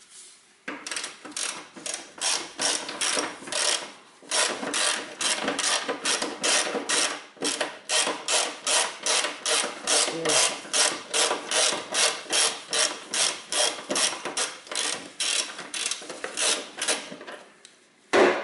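Ratchet wrench with a 10 mm socket clicking in a steady run of about three clicks a second as it backs out the MAP sensor's mounting bolt, with one louder knock near the end.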